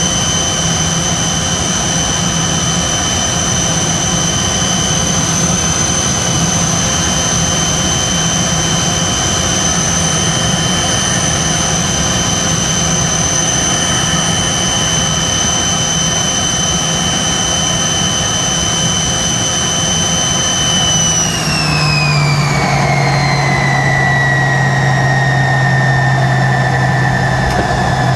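Cabin sound of a Tupolev Tu-134B's two rear-mounted Soloviev D-30 turbofans on final approach: a steady high whine over a low drone. About three-quarters of the way through, the whine falls in pitch and settles lower as the engines spool down towards idle for the landing.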